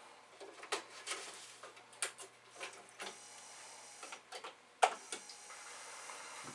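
Irregular mechanical clicks and clacks from hands working at a Commodore 8250 dual floppy disk drive and its computer, with one sharp, louder clack about five seconds in.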